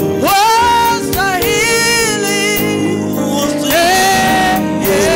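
Gospel worship song: a woman sings lead into a microphone, sliding up into long held notes with a slight waver, over sustained instrumental backing.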